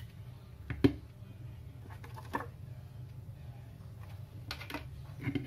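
Handling noise of hard plastic: a sharp click about a second in, a softer tap a little past two seconds, and a few quick clicks and rustles near the end as a plastic label maker, its character wheels and a clear plastic case are picked up and moved, over a steady low hum.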